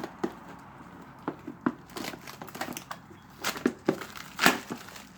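Foil trading-card booster pack wrapper crinkling and tearing open, with cards being handled: a run of irregular short crackles.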